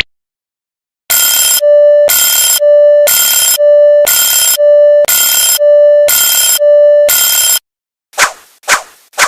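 Railroad level-crossing warning alarm: a rich ringing tone alternating with a steady single beep about once a second. It starts about a second in and cuts off suddenly after about six and a half seconds. Near the end come a few quick struck dings, each fading fast, about two a second.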